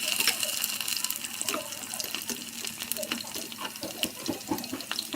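Potato sticks deep-frying in a pot of hot oil during their second fry: a steady sizzle dotted with many small crackles and pops.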